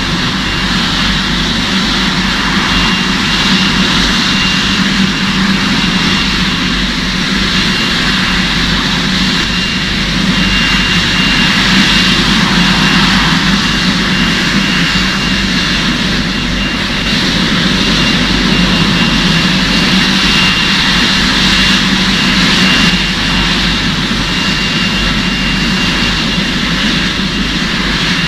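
Aircraft engines running steadily: a continuous whine and rush with a thin high tone held throughout, swelling slightly a couple of times.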